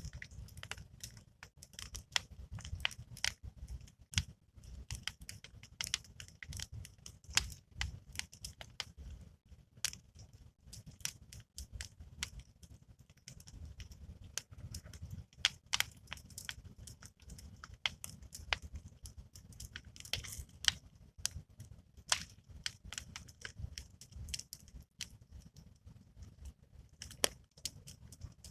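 Wood campfire crackling, with irregular sharp snaps and pops over a low steady rumble.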